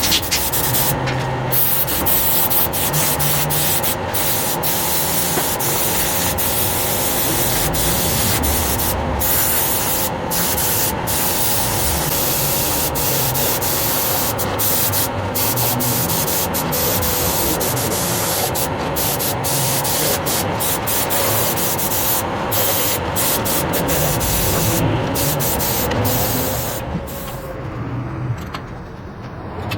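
Steady abrasive rubbing noise from metal engine parts being sanded or ground, with a faint machine hum underneath. It is broken by many brief cuts and thins out near the end.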